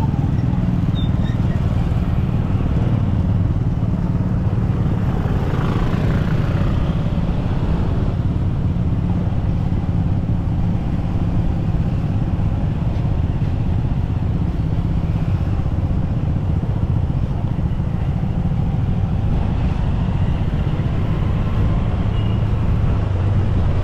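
Motorcycle engine running with a steady drone, heard from the rider's seat along with road and wind noise. Traffic noise swells briefly about six seconds in.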